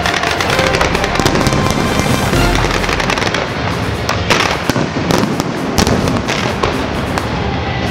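Fireworks display: a dense, continuous crackle and popping of bursting shells, with several louder bangs in the second half.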